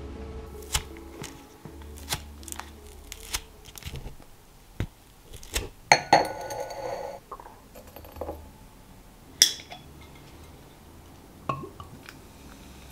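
Strawberry ice cubes being cracked out of a plastic ice cube tray, a string of sharp snaps and clicks. Then a glass is set down on a marble counter with a ringing clink, and ice cubes dropped into the glass clink twice.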